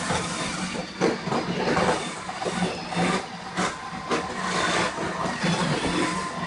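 iRobot Roomba 870 robot vacuum running, with a steady whir from its vacuum motor and brushes. Irregular clicks and knocks sound over the whir.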